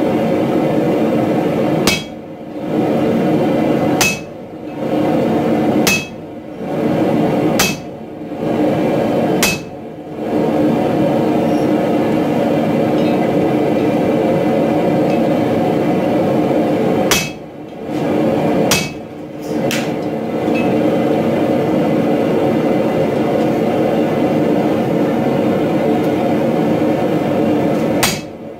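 Sledgehammer blows driving a handled punch into a glowing steel hammer head held in tongs on an anvil, the blows coming in rapid runs with several short pauses between them.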